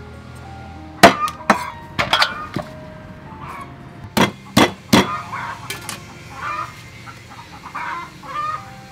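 Meat cleaver chopping on a thick wooden chopping block: a run of sharp chops in irregular clusters, about nine in all, stopping after about six seconds. Chickens cluck in the background.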